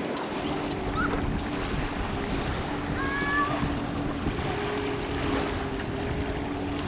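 Wind buffeting the microphone over moving river water, with a steady low hum underneath. A short chirp sounds about three seconds in.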